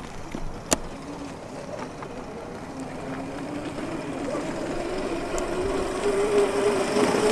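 Small Vespa-style electric mini scooter's motor whining as it drives over dirt, the whine rising slowly in pitch and growing louder. A single sharp click just under a second in.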